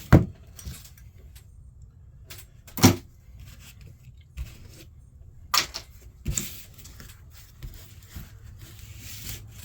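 Scattered knocks and clatters of scrap wire and cords being handled and dropped: a sharp one right at the start, a louder one about three seconds in, and two more a little past halfway.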